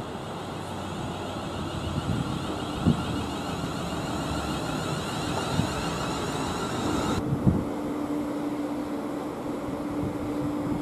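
Class 360 electric multiple unit running through the station: steady running noise with a few single knocks from the wheels, and an electric whine that cuts off suddenly about seven seconds in, leaving a steady low hum.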